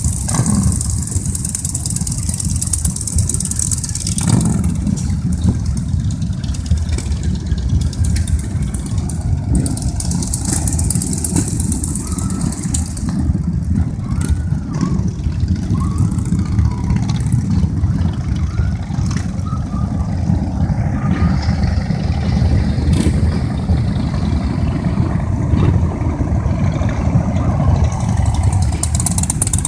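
A group of cruiser and touring motorcycles riding past one after another, their engines running steadily and low-pitched throughout.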